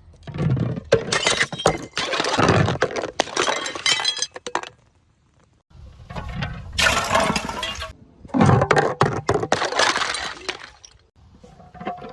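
Glass bottles breaking and crunching: three bouts of dense, sharp cracking and shattering, with short pauses about five seconds in and near the end.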